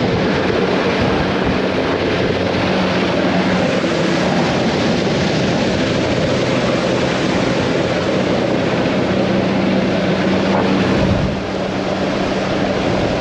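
Small boat's motor running steadily under way, with rushing wind and water noise; it eases off slightly near the end.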